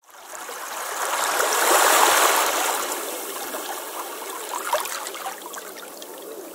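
Water running and trickling, loudest about two seconds in, then settling to a quieter steady flow with small gurgles.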